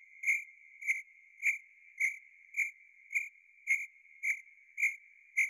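A steady high electronic tone with a regular pulse a little under twice a second, an added sound effect.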